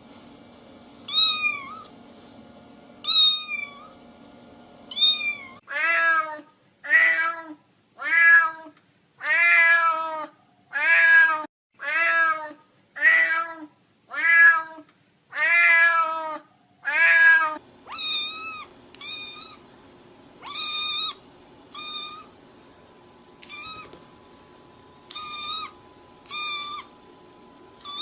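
Cats meowing over and over. First comes a high-pitched meow every two seconds or so. About six seconds in, a lower-pitched meow takes over, roughly once a second, for some twelve seconds. Then the high-pitched meows return at uneven spacing.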